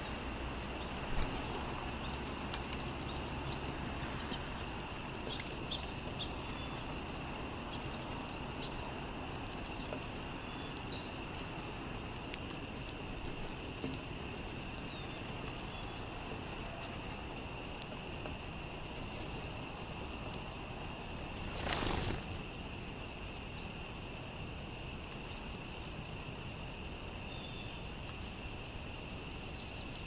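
Small sparrows calling in short, high chirps while feeding on scattered seed, over a steady high tone. A brief rush of wingbeats comes about two-thirds of the way through as the flock flies off.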